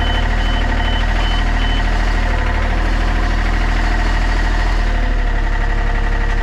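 John Deere 30 (Yanmar-built) mini excavator's diesel engine running steadily, with a rapid series of short electronic beeps that stops about two seconds in.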